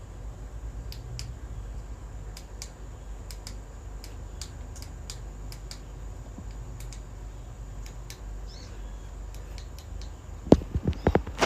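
Scattered light clicks over a low steady hum, then a quick cluster of loud knocks about ten seconds in.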